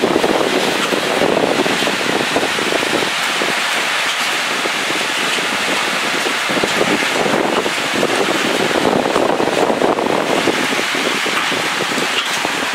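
Heavy thunderstorm rain falling hard, with gusting wind: a loud, steady rush of noise that swells and eases every few seconds.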